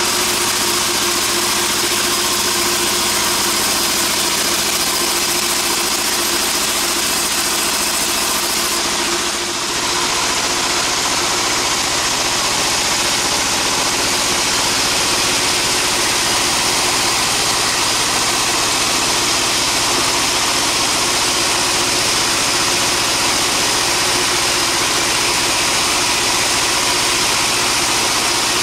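Sawmill machinery engine running steadily and loud, with a brief dip in level about a third of the way in.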